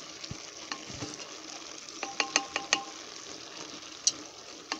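Wooden spoon stirring potatoes and kale in an aluminium pot over a steady light sizzle from the cooking food. About two seconds in, a quick run of sharp clicks with a short metallic ring as the spoon knocks the pot, and one more click near the end.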